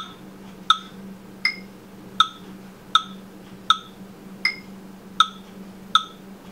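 Metronome clicking steadily at about 80 beats a minute, with a higher-pitched accent click on the first of every four beats.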